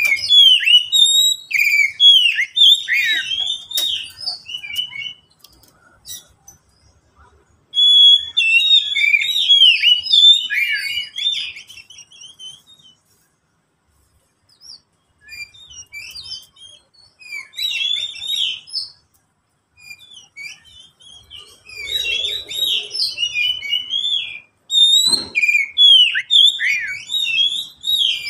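Oriental magpie-robin singing in phrases of rapid, varied whistled notes and chattering trills, with pauses of a few seconds between them. One sharp knock near the end.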